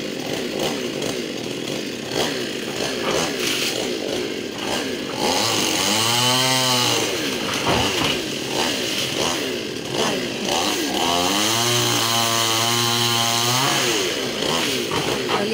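Two-stroke chainsaw running throughout, revved up and back down about six seconds in, then revved again and held at high speed for a few seconds near the end before dropping back.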